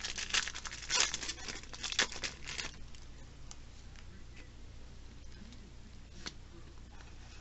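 Foil wrapper of a Yu-Gi-Oh! booster pack being torn open and crinkled for the first few seconds. After that come faint rustles and an occasional light click as the cards are slid out and fanned.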